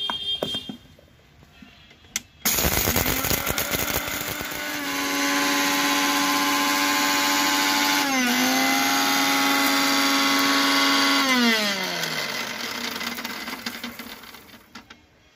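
Propello electric mixer grinder dry-grinding whole spices in its small steel jar. The motor starts suddenly, runs noisy for a couple of seconds as the whole spices break up, then settles into a steady whine with a brief dip in pitch midway, and winds down with falling pitch as it coasts to a stop.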